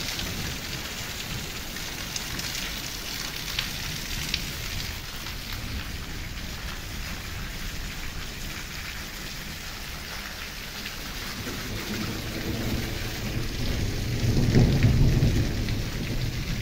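Heavy rain falling steadily, with a few sharp drop hits close by in the first half. A low rumble of thunder builds a little past the middle and is loudest near the end.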